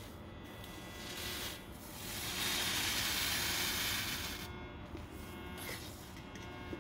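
A small lump of metallic sodium, taken from a sodium-filled exhaust valve, hissing as it reacts with a drop of liquid. The hiss builds about two seconds in, holds for a couple of seconds, then dies away.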